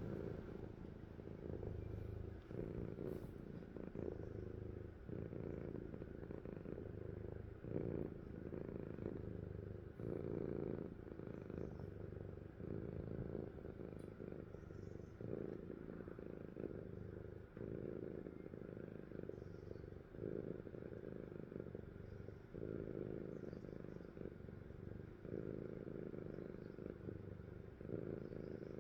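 Sleeping cat snoring: a low, purring rumble that swells and fades with each breath, about once every one and a half seconds.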